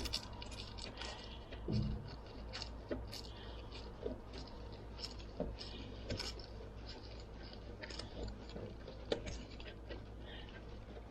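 Irregular light clicks and ticks of hand tools and loose screws against the skid steer's metal as screws are backed out, over a steady low hum.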